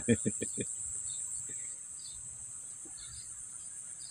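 Steady, high-pitched insect chorus trilling, with a few faint bird chirps scattered through it.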